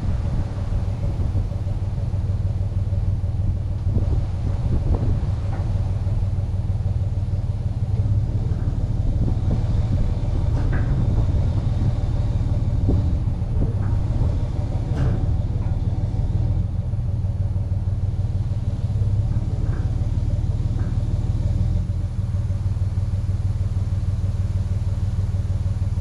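Truck engine running steadily with a low hum, with a few light clicks and rattles now and then.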